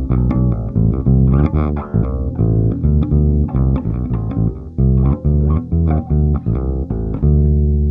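Bass guitar played solo: a run of plucked notes, one after another, each ringing briefly. It sounds like noodling in search of a part.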